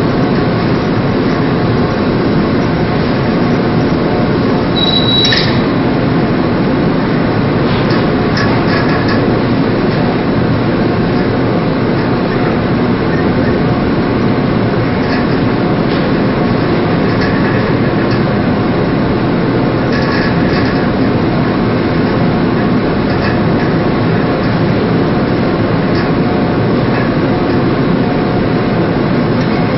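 Steady, loud rumble of the anchor-handling vessel's engines and machinery running, unchanging throughout.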